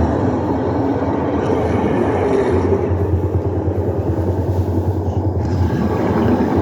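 A steady, loud rumble of a running vehicle, unchanging in pitch throughout.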